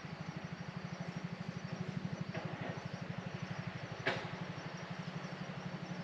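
A low, rapidly pulsing engine throb that swells and then eases, over the steady hiss of falling rain, with one sharp tap about four seconds in.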